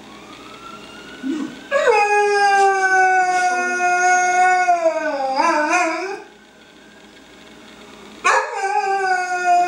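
Dog howling: one long howl starts about two seconds in, rising quickly to a steady pitch, then wavers and breaks off around six seconds; after a short pause a second howl begins near the end.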